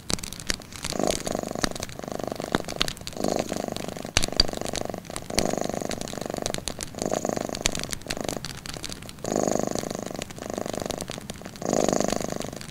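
Cat purring in rhythmic waves, each about a second long with short breaks between, overlaid by sharp crackles and pops from a wood fire.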